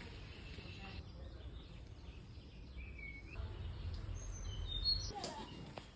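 Outdoor ambience of a few short bird calls and chirps over a low, uneven rumble. One call comes about halfway through, and a quick run of higher chirps follows near the end.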